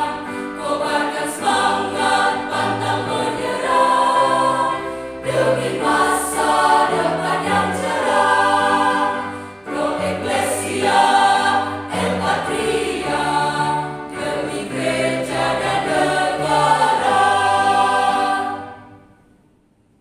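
Mixed high-school choir singing a school march, with steady low notes beneath the voices, fading out near the end.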